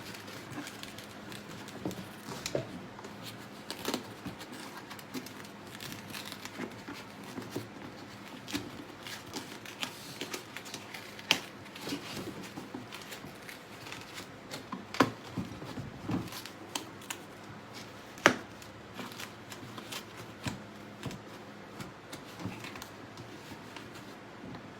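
Styrofoam being handled and fitted into a box by hand: irregular crinkling and creaking with scattered clicks and knocks, the sharpest knocks about fifteen and eighteen seconds in, over a faint steady hum.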